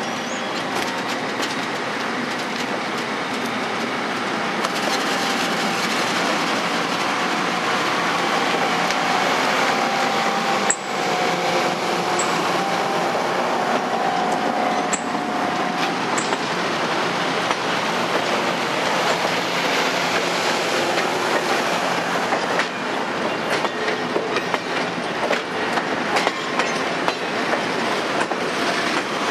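Passenger train coaches rolling past at close range: the steady noise of steel wheels running on the rails, with faint clicks in the second half.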